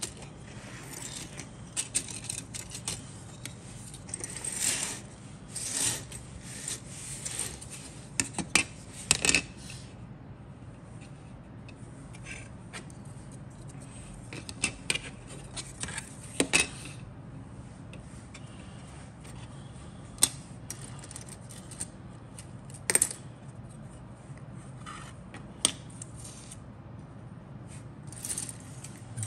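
Grey plastic parts of a 1/72 Airfix Dornier Do 217J-1 model kit being handled: scattered sharp clicks and taps as the hard plastic pieces knock together and are set down on a cutting mat, with a few longer scraping sounds early on.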